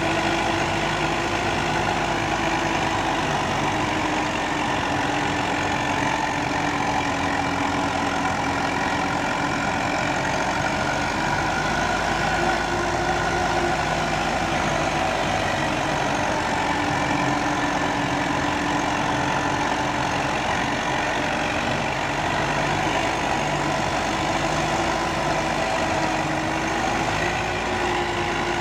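Farm tractor's diesel engine running steadily under load while driving a rear-mounted rotavator (rotary tiller) through the soil, a constant drone whose pitch wanders slightly.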